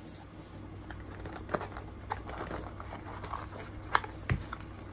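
Fingers scratching and picking at the flap of a cardboard shipping box, with scattered small clicks and two sharper taps, the second followed by a dull thump, over a steady low background hum.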